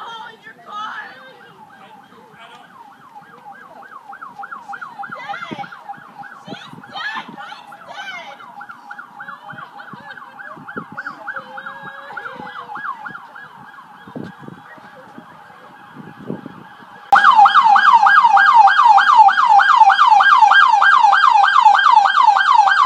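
Emergency vehicle siren in a rapid yelp, its pitch sweeping up and down several times a second. Faint at first, it jumps suddenly much louder about seventeen seconds in.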